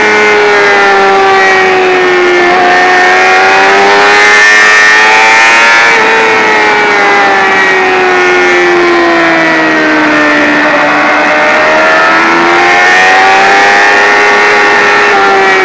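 Sport motorcycle engine running hard at high revs, recorded from a camera mounted on the bike. The engine note rises and falls slowly as the rider works the throttle through long corners, with a small jump in pitch twice in the first six seconds.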